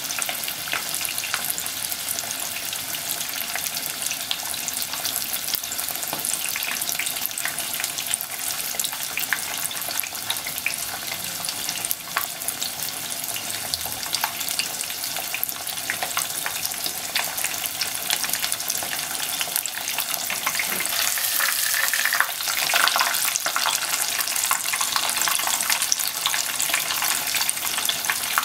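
Breaded pork cutlet deep-frying in a pot of hot oil: a steady, dense sizzle and crackle of bubbling oil, swelling a little about three-quarters of the way in.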